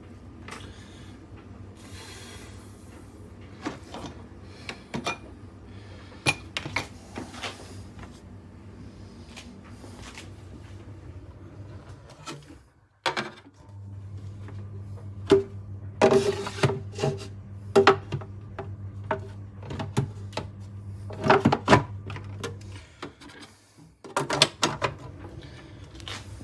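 Knocks, clicks and clatter of espresso-machine parts and cups being handled on a counter, over a faint steady hum. About halfway through, a louder steady low hum starts up, runs for about nine seconds among the clatter, then stops.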